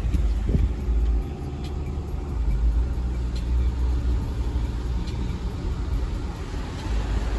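Car being driven, a steady low road and engine rumble heard from inside the cabin, with a few faint ticks.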